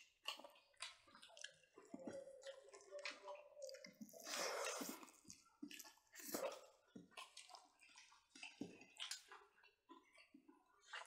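Wet chewing, lip-smacking and mouth clicks of people eating smoked pork ribs and rice with their fingers, with a louder, longer wet sound about four seconds in and another loud smack a couple of seconds later.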